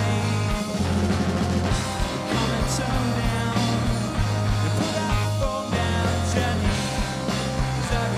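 Indie pop band playing live: electric guitars, bass and drum kit in an instrumental passage of the song, the low notes changing about once a second under regular drum hits.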